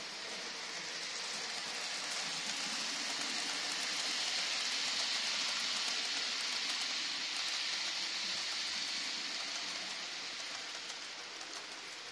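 Hornby TT:120 model train with blood and custard coaches running past on the track: a steady hiss of wheels on rails that swells to a peak midway and fades as it passes.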